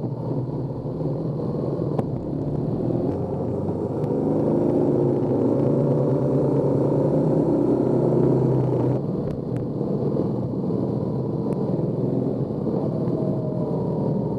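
BMW adventure motorcycle's engine running under way, with wind and road noise from a camera mounted low by the front wheel; the engine pitch rises between about four and nine seconds in, then the sound changes abruptly.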